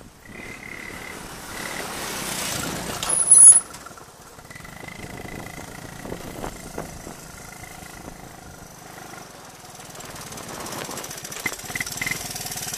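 A Honda ATC185S three-wheeler's single-cylinder four-stroke engine runs as the machine rides up and past, loudest about three seconds in, with a sharp loud knock just then. The engine carries on further off, then grows louder again near the end with a steady putting beat.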